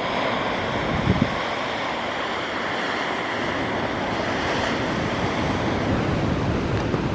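Boeing 777F freighter's GE90 turbofan engines on final approach: a steady rushing jet roar that swells slightly as the aircraft nears. Wind bumps the microphone briefly about a second in.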